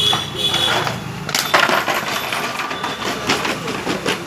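Small metal parts clinking and tapping together: an irregular run of light, sharp metallic clicks while parts of a jet pump motor are handled.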